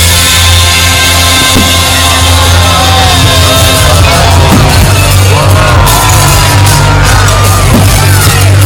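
Loud music over a public address system with a steady heavy bass, and from about three seconds in, voices in the crowd whooping and yelling with rising and falling pitch. A few faint pops sound under the music.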